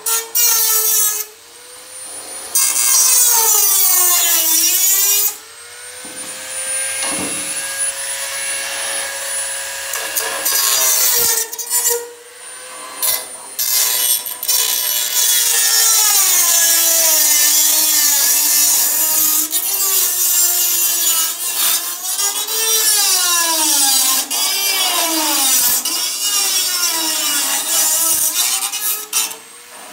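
Dremel rotary tool cutting through a metal gutter: a high motor whine over a gritty cutting hiss, its pitch sagging as the tool bites into the metal and recovering as it eases off. The tool stops briefly several times.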